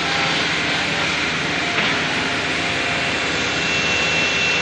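Woodmaster single-head automatic-tool-change CNC router running, its spindle cutting wooden furniture parts with the dust extraction drawing: a loud, steady machining noise. A thin high whine joins it about three and a half seconds in.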